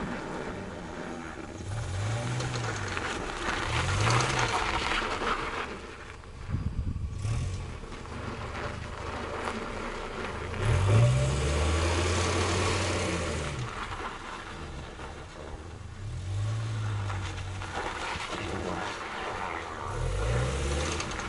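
Toyota Noah SR50 engine revving up and down in short bursts, again and again, with tyre and road noise, as the car is driven on full steering lock under throttle: the test that brings out a worn, clicking front CV joint.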